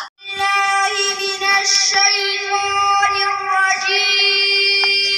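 A boy singing solo into a microphone in a high, unbroken voice, holding long, drawn-out notes.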